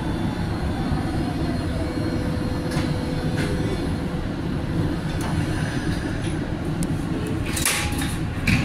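A MetroLink light-rail train running, heard from inside the car as it slows into a station: a steady low rumble with a faint whine that falls and then levels off, and a few sharp clacks, loudest near the end.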